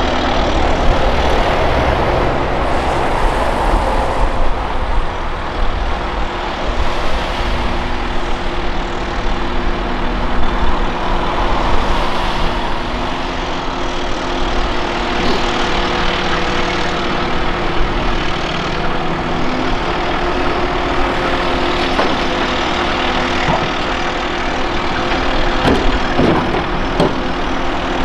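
Diesel engines of a Volvo ECR235E excavator and a Volvo A30G articulated dump truck running steadily while the excavator digs and loads dirt and rocks, the engine note swelling and easing with the work. A few sharp knocks near the end.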